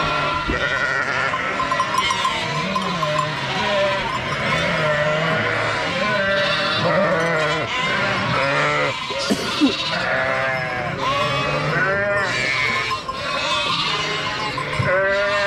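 A flock of sheep and lambs bleating, many overlapping calls one after another, with more of them in the second half.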